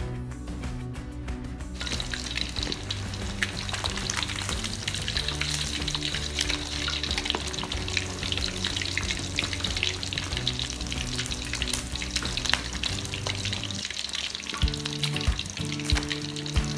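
Chicken pieces deep-frying in hot oil in an aluminium wok: a dense crackling sizzle that swells in about two seconds in, stirred now and then with a metal utensil as they fry towards golden brown. Background music with steady low notes plays underneath.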